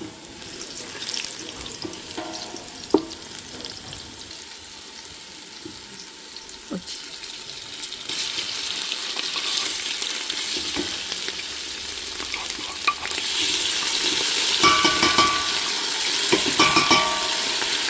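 Food frying in oil in a pan, stirred with a spoon that clicks and scrapes against the pan. The sizzle grows louder about eight seconds in and again around thirteen seconds, with short squeaky scrapes near the end.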